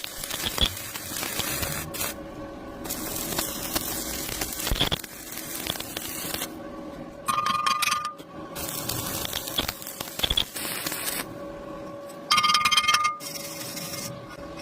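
Electric arc welding: a crackling, frying hiss that stops and restarts several times, over a steady hum. Twice, a short louder burst carries a ringing tone.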